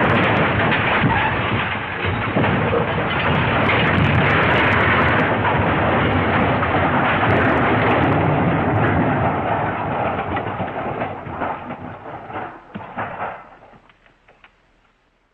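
A smash sound effect: a sudden loud crash that carries on as a dense rumbling noise for about ten seconds, then breaks up into scattered crackles and fades away near the end.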